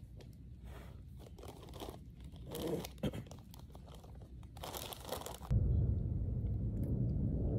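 A crisp packet crinkling and crisps being crunched in irregular bursts. About five and a half seconds in, a louder steady low rumble cuts in abruptly and takes over.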